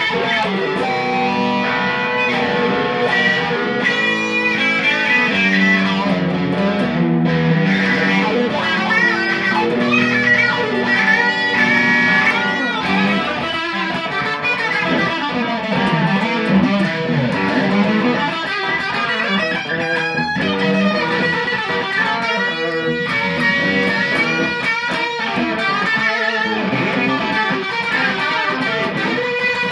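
Fender Sixty-Six electric guitar played through an amplifier: a continuous stretch of riffs and lead lines, the notes changing quickly throughout.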